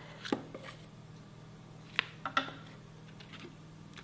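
Spatula scraping thick idli batter out of a stainless steel grinder drum and into a ceramic bowl: a few soft taps and clicks, the sharpest about halfway through. A faint steady low hum sits underneath.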